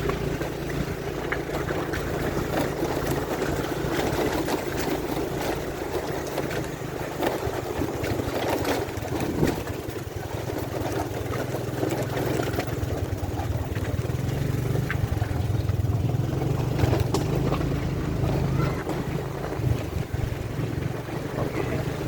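Motor vehicle engine running steadily under way, with road and wind noise, heard from on board.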